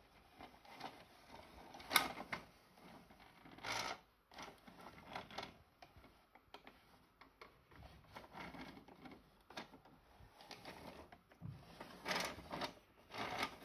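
Scattered plastic clicks and knocks from a VTech Tut Tut Baby Flitzer toy parking garage being handled, the sharpest about two seconds in, near four seconds and again near the end.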